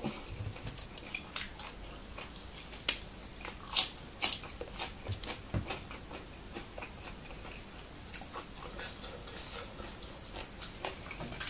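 A man chewing a mouthful of minced buffalo larb: soft, irregular mouth and chewing clicks, a few sharper ones about one to five seconds in.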